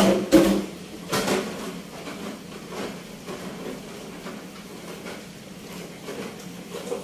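A few sharp knocks and rattles, one right at the start and another about a second later, then faint scattered clicks over a low steady hum.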